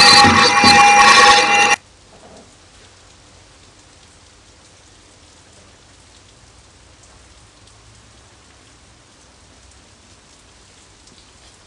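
A loud, shrill ringing made of many steady tones, bell-like, cuts off abruptly about two seconds in. A faint steady hiss follows.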